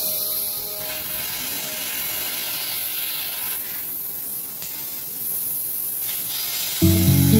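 6 kW CNC laser cutting machine cutting 2.5 mm steel sheet, its cutting head giving off a steady hiss. Music comes back in near the end.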